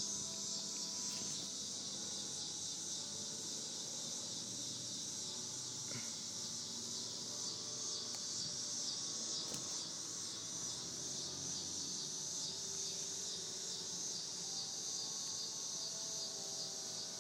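Steady chorus of insects, a continuous high-pitched buzz, with faint held ringing tones of distant church chimes underneath that change from note to note.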